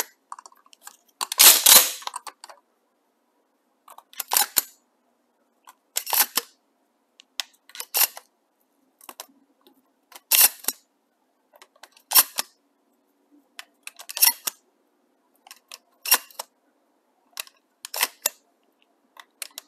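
12-gauge mini shells pushed one at a time through the loading port into a Mossberg pump shotgun's magazine tube fitted with a cartridge adapter, each snapping in past the shell latch with a sharp click, about one every two seconds, with lighter handling clicks between.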